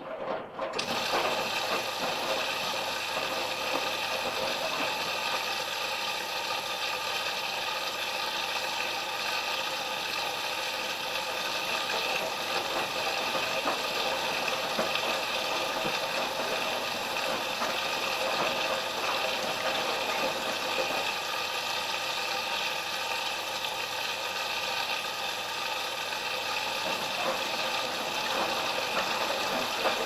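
Washing machine with a steady rush of water that starts suddenly about a second in and runs on evenly.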